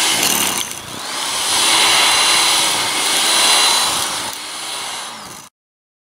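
Corded Toro electric snow blower running under load, its motor whining as the auger chews through snow and throws it. The sound cuts off suddenly about five and a half seconds in.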